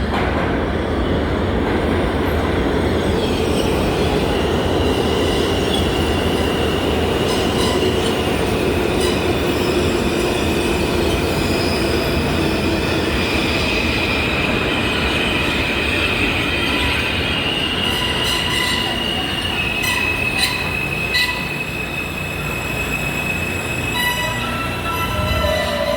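New York City subway train of R42 cars rolling past with a steady rumble and long, high-pitched wheel squeal. Scattered clicks from the wheels over rail joints come more often in the last few seconds.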